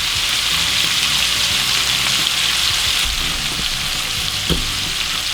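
Chopped onion, celery, bell pepper and garlic sizzling steadily in hot olive oil in a pan, with a single light knock of a utensil near the end.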